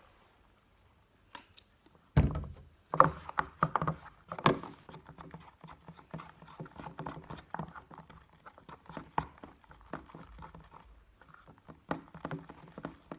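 A stick knocking and scraping in a plastic box as slime, made from peel-off face mask, shaving foam and contact-lens solution, is stirred. There are irregular clicks and knocks, starting about two seconds in, with the loudest strokes in the first few seconds.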